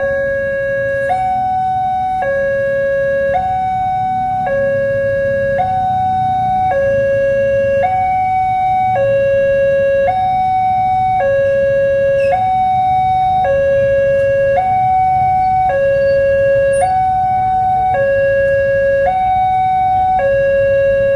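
Railway level-crossing warning siren sounding, alternating steadily between a low and a higher tone, each held about a second, in a continuous hi-lo pattern.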